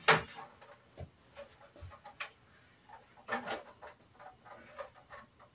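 Translucent green plastic iMac G3 case shells being picked up and handled: scattered light knocks and scrapes of hollow plastic, with a sharper knock right at the start.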